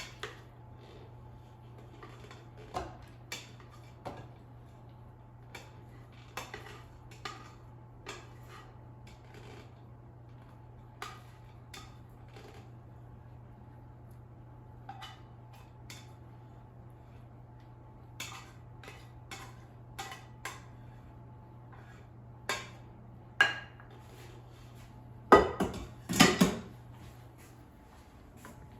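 A spoon clinking and scraping against an Instant Pot's inner cooking pot as cooked rice is scooped out, with scattered light taps every second or so and a few louder clanks near the end. A faint steady hum runs underneath.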